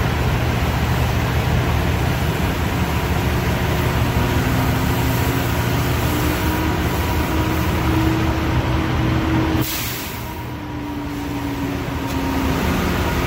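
Semi truck diesel engine running steadily, with a tone that slowly rises and then falls, and a short hiss of air about ten seconds in.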